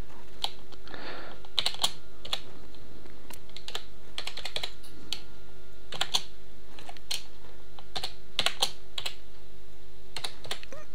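Typing on a computer keyboard: irregular key clicks, a few at a time with short gaps, over a steady faint hum.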